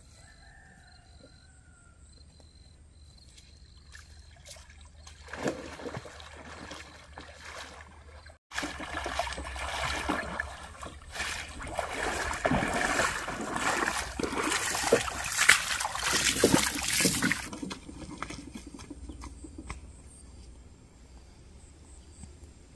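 Muddy water splashing and sloshing as a brick-loaded wheelbarrow is pushed through a shallow pond. The splashing is loudest through the middle of the stretch and quieter at either end.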